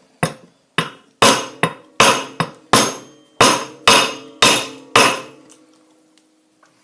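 Repeated sharp blows smashing a rock-solid giant gobstopper, about eleven strikes at roughly two a second, each with a short ringing after it, stopping about five seconds in.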